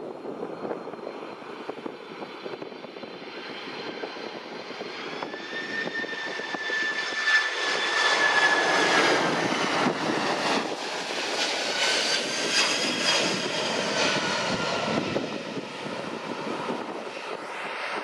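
Japan Airlines Boeing 767-300ER on landing approach, its two turbofan jet engines passing low overhead. A rushing roar with a high whine builds to its loudest from about eight to thirteen seconds in, the whine dipping slightly in pitch as the airliner goes by, then fades.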